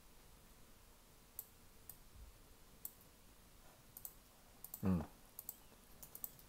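Faint, scattered clicks of a computer mouse and keyboard, singly and in quick little groups, with a short murmur of voice about five seconds in.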